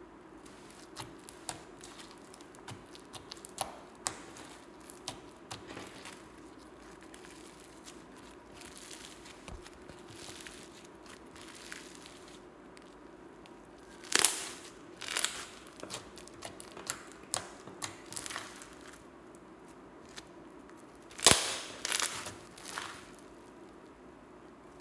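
Foam-bead slime being stretched and squished by hand: scattered sticky clicks and small pops, with two louder clusters of crackling pops about 14 and 21 seconds in.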